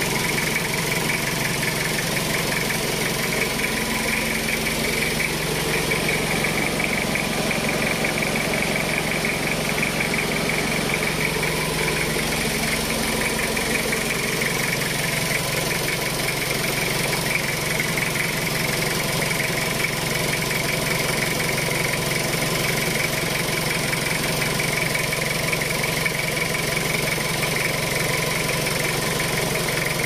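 Car engine idling steadily with the air-conditioning on, its compressor and condenser fan running. The deepest part of the hum drops a little about halfway through.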